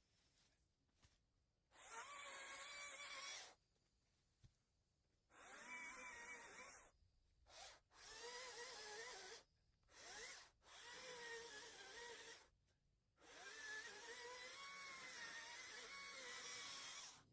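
Ryobi 40-volt electric chainsaw cutting down saplings: its motor whine starts and stops about seven times in short bursts, the pitch wavering and dipping as the chain bites into the wood, with a long four-second cut near the end.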